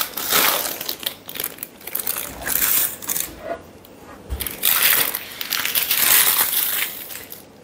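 Crinkling and crumpling of a wrapping being handled, in irregular spells that ease off briefly about halfway through.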